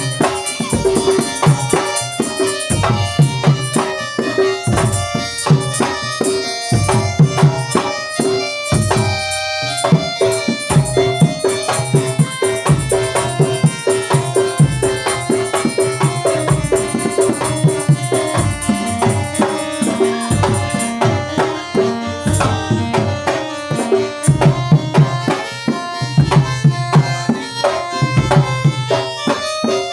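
Traditional Indonesian percussion music: hand drums play a fast, driving rhythm over a steady held tone.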